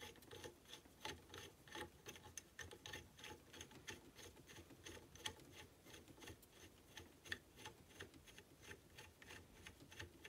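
Faint, irregular small metal clicks and ticks, several a second, of an Allen key turning an M5 screw to fasten a bracket.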